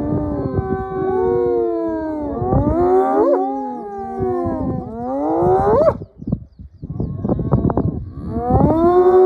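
Several spotted hyenas calling at once: long, drawn-out moaning calls that sweep sharply upward in pitch at their ends, coming in three overlapping waves. A short rough, pulsing stretch sits between the calls about six seconds in.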